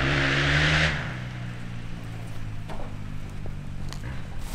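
A car engine runs with tyre noise, loud for about the first second and then cutting off suddenly. A quieter, steady low engine hum follows and fades out near the end.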